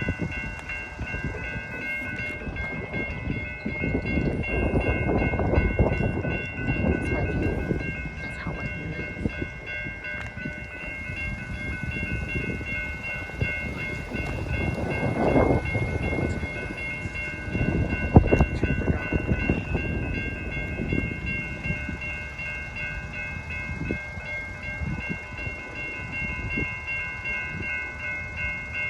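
Amtrak Wolverine passenger train running past a road crossing. Its rumble swells and fades, with a sharp knock about two-thirds of the way through. A steady high ringing from the crossing's warning bells runs under it throughout.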